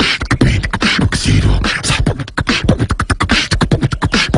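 Human beatboxing: a fast run of vocal percussion, sharp clicks and hissed snares over deep bass thumps.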